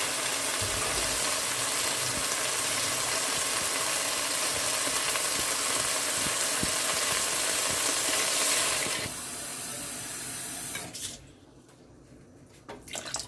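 Water being poured into a pot of braised chicken and carrots: a steady rushing hiss of pouring water for about nine seconds, slightly quieter for a moment, then it stops near the end, leaving a few faint clicks.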